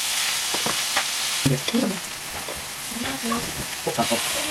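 Food frying in a pan: a steady sizzle, with a few short knocks of utensils.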